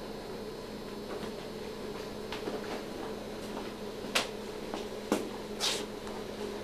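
Steady background hum with three sharp clicks or taps, about four, five and six seconds in.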